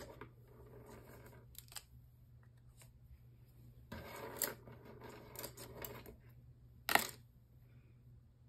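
Light handling sounds of a spiral-bound sketchbook being moved on a desk: paper rustling and scattered small clicks and taps, with one sharp click about seven seconds in that is the loudest.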